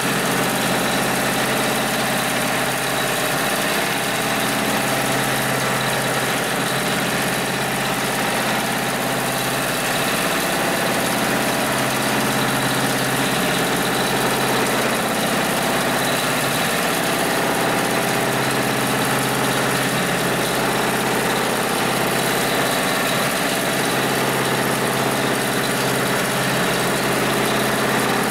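Hightex 72600PLK2 heavy-duty automatic sewing machine running steadily, stitching through layered red synthetic webbing for a lashing strap or lifting sling.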